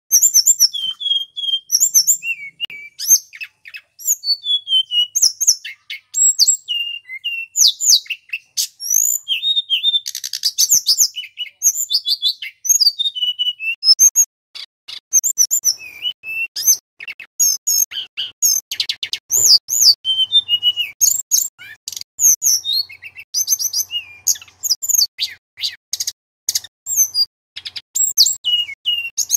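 Male tledekan gunung (hill blue flycatcher) singing a loud, fast, varied song of high whistled notes, pitch slides and quick rattling trills, with only brief pauses.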